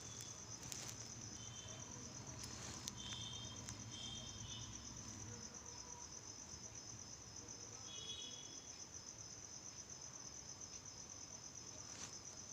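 Faint, steady high-pitched trill of a cricket, an even rapid pulse that never lets up, with a few short fainter chirps around it.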